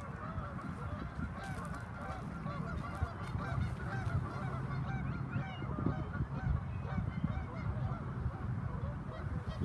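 A flock of waterbirds on a lake calling together: a dense, unbroken chorus of many short, overlapping calls, over a steady low rumble.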